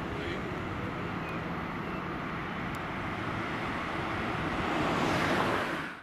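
Road traffic: a fire engine, cars and a van driving away with steady engine and tyre noise, no siren sounding. It grows a little louder near the end, then fades out.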